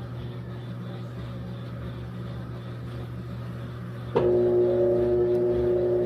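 Electrolux LEC 15 washing machine in its spin cycle: a steady low hum, then about four seconds in the motor starts again with a click and a louder steady whine, one tone rising slightly as the drum picks up speed.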